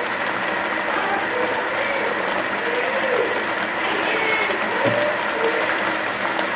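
Mutton sizzling in melted butter in a steel karahi as a slotted metal spatula stirs and scrapes through the pieces. It is a steady, even sizzle.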